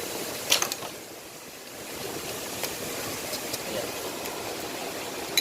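Hand tools clinking on engine parts during a teardown: one sharp metallic clink about half a second in, then a few light clicks, over a steady workshop hum.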